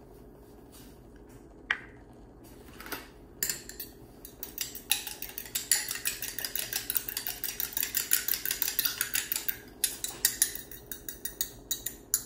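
Fork beating a raw egg in a small glass bowl. After a few quiet seconds with a couple of single clicks, there is a fast, steady run of light metal-on-glass clinks for about six seconds, then a few scattered clinks.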